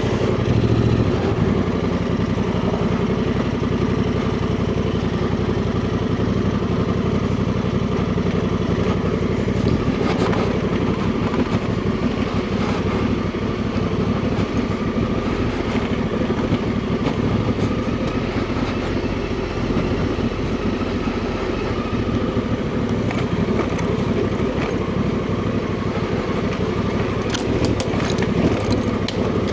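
Honda Transalp 750's parallel-twin engine running at low, fairly steady revs while the motorcycle is ridden off-road, with a few sharp clicks near the end.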